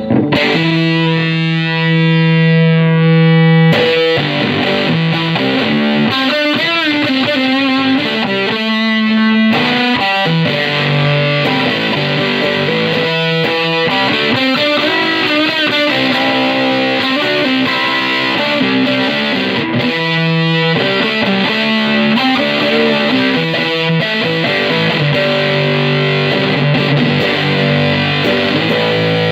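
Distorted electric guitar, a Jackson Dinky with EMG pickups, played through a tweed 4x10 tube amp with 5881 power tubes, its EQ set with the bass down and the mids up. A chord rings for about four seconds, then the playing turns to single-note riffing with bends and vibrato.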